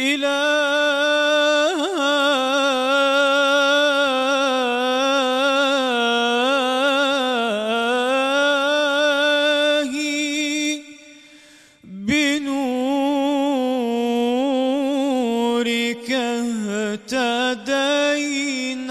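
A young man's solo unaccompanied voice singing an Islamic devotional chant (inshad), holding long notes with wavering melismatic ornaments. It breaks off for a breath about eleven seconds in, then resumes.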